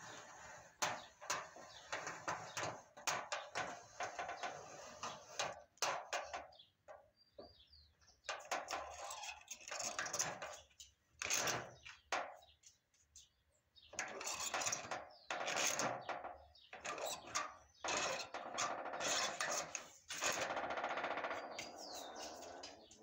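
Fringed paper rustling and crackling against cardboard as hands press and smooth it down, in irregular bursts of handling with a couple of short pauses.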